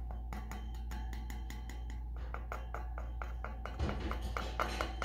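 Background music of quick, evenly spaced plucked or struck notes, about five a second, over a steady low hum.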